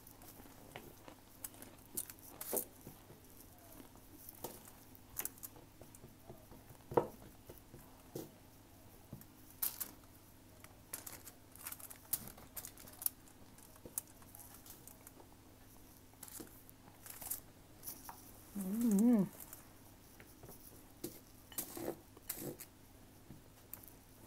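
A fork stirring and mashing damp cornstarch on foil, giving irregular crunchy scrapes, crackles and small clicks, with one sharper click about a third of the way through. About three-quarters of the way through, a short wavering hum rises and falls.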